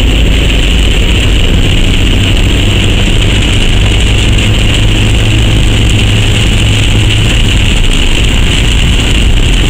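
Steady engine and road rumble of a car, heard from inside the cabin.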